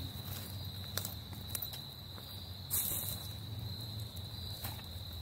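Insects trilling in one steady, unbroken high tone, with a few crunches of footsteps in dry fallen leaves, the loudest about three seconds in.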